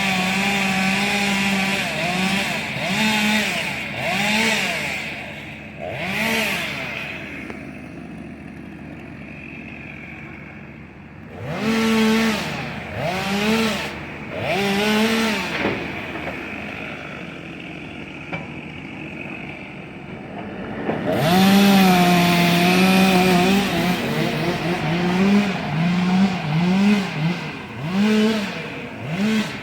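Chainsaw cutting wood at full throttle in three bouts. Its high engine note rises and sags repeatedly as the chain bites in, and it drops back to a lower level for a few seconds between the bouts.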